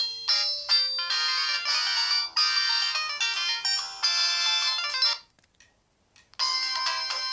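O2 X2 mobile phone playing its built-in ringtones: a synthesized melody with several notes at once stops about five seconds in, and after about a second of silence the next ringtone starts.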